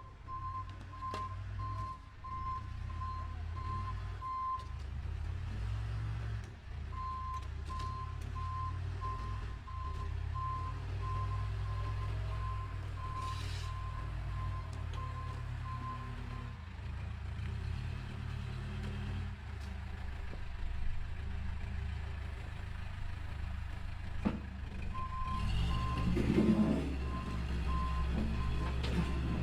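Wheel loader's diesel engine running with a low rumble while its reversing alarm beeps about twice a second, stopping and starting again in three spells. Near the end the engine surges louder and rougher for a moment.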